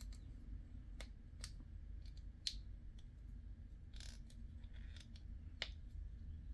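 Faint handling of small plastic model-kit parts: a few separate sharp clicks with short scuffs between them, as the last model wheel rim is pushed and twisted into its rubber tire.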